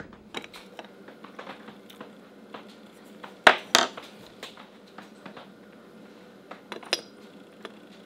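Glass clinks and small taps from a glass teapot and its glass infuser being handled, with two loud clinks about halfway through and another sharp one near the end.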